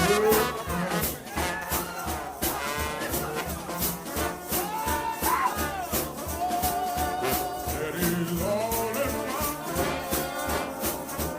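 Gospel shout band music: brass, trombones to the fore, playing a melody over a steady percussion beat with shaken hand percussion.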